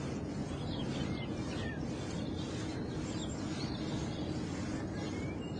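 Birds chirping now and then over a steady low background rumble.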